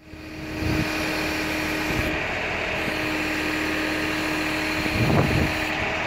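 Compact tractor engine running steadily while it powers the hydraulics of a three-point tree spade, with a steady hum under it.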